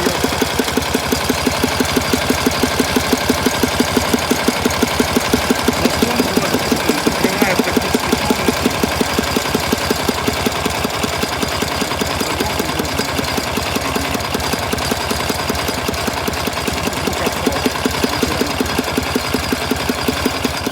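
K-750 motorcycle's flat-twin sidevalve engine running steadily with an even, rhythmic knock. This is the dull thudding and 'booing' out of the air filter that stays with the clutch pulled in and the choke closed. The owner suspects the crankshaft or the camshafts.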